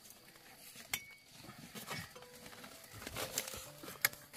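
Hands handling dug-up wild tubers and a vine among dry leaves and roots: rustling and crackling, with a sharp click about a second in and another near the end.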